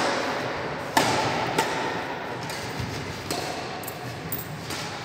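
Badminton rackets hitting a shuttlecock in a rally: a few sharp strikes a second or two apart, the loudest about a second in, each echoing in a large hall.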